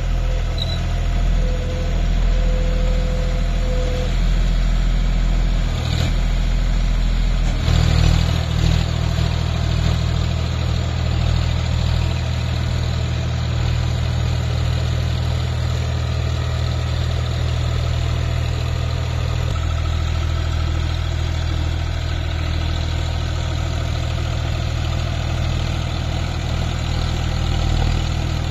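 John Deere 5050D tractor's three-cylinder diesel engine running steadily while driving a Shaktiman rotavator through the soil. The engine note shifts about eight seconds in, with a brief knock, and changes again around twenty seconds in.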